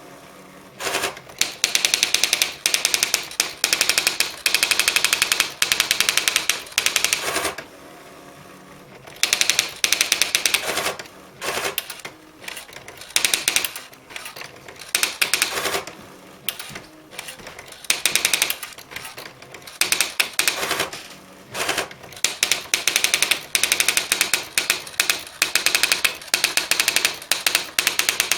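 Olivetti ET 55 daisy-wheel electronic typewriter printing by itself in demo mode: a rapid, even machine-gun-like clatter of strikes in runs of a few seconds, broken by short pauses.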